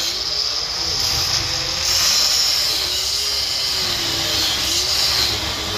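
Handheld electric power tool running continuously as it cuts the top-box bracket, its motor whine wavering up and down in pitch under load over a steady high hiss.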